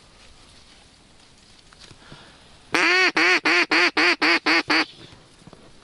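Mallard duck call blown in a quick run of about nine loud, even quacks lasting about two seconds, starting near the middle. It is a hen-mallard calling sequence used to draw circling ducks in to land.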